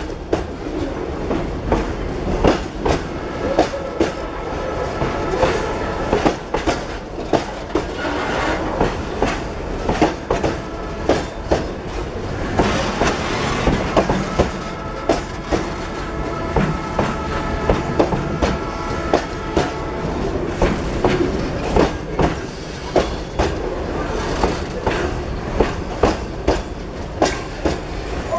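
Loaded freight boxcars rolling past close by, their wheels clacking over the rail joints in a steady rhythm of paired knocks under a continuous rumble. A high-pitched wheel squeal comes and goes, and there is a brief hiss near the middle.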